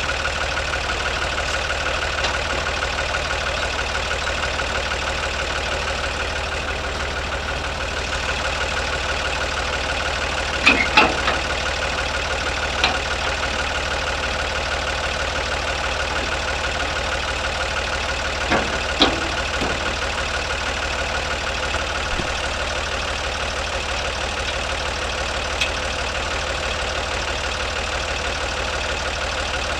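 Older farm tractor's engine idling steadily. A few sharp metal clanks from the hitch and snowblower frame stand out, a close pair about a third of the way in and another pair about two-thirds through.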